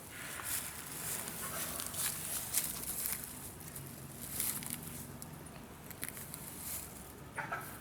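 Malayan tapir walking about, its steps giving irregular rustling and crunching sounds, with a sharper rustle near the end.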